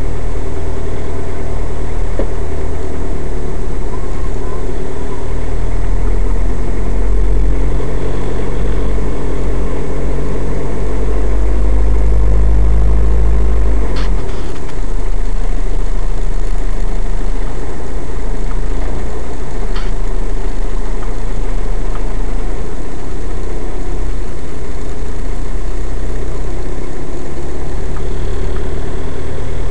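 Car engine running at a crawl, a steady low rumble heard from inside the cabin through a dashcam's microphone. Two brief clicks, about halfway through and again some six seconds later.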